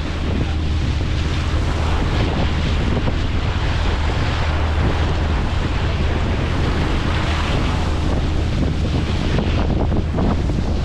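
Wind buffeting the microphone on the open deck of a cruise boat, with rushing water and the steady low hum of the boat's engine underneath.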